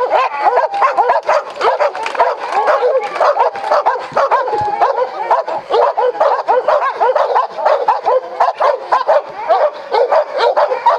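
Many dogs barking and yipping at once, a dense, continuous din of overlapping calls.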